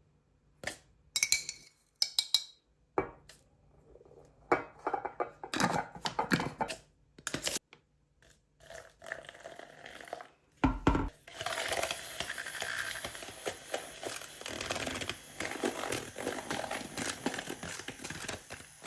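Kitchen sounds of dishes and utensils: scattered clinks and knocks, then from about eleven seconds in a steadier run of rough scraping and rattling.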